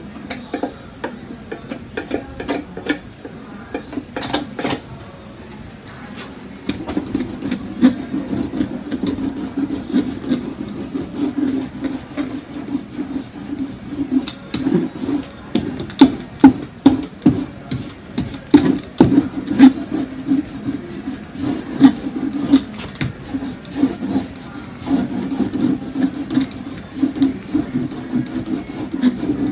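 Hand tools scraping and rubbing over a textured cold wax and oil painting on a wooden panel. There are a few light palette-knife scrapes and ticks at first; from about seven seconds in comes a continuous run of quick back-and-forth rubbing strokes, some of them sharper and louder.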